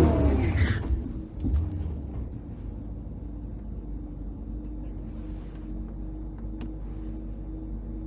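The 6.1L HEMI V8 of a 2009 Dodge Challenger SRT-8 idling, a steady low rumble heard from inside the cabin as the car creeps forward.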